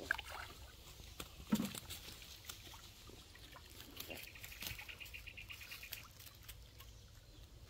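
Faint splashing and sloshing of hands groping through shallow muddy pond water, with scattered small splashes and one louder splash about a second and a half in.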